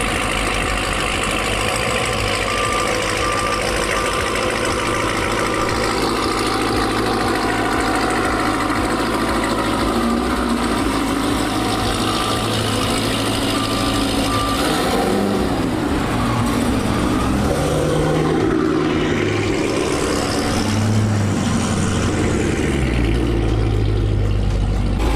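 Dodge muscle car V8 engine running, with a rumble that rises and falls in the second half. A high electronic beep repeats about once a second for roughly twelve seconds.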